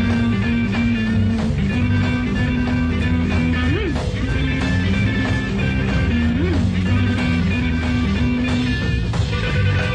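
Instrumental passage of a late-1960s rock band's BBC session recording, with no singing: held chords over a steady bass line, with two short notes that slide up and back down partway through.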